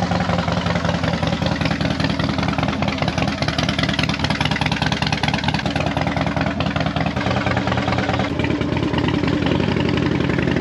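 Harley-Davidson Fat Bob's V-twin engine idling with a steady, lumpy beat, freshly started. The revs shift around eight seconds in and climb a little near the end.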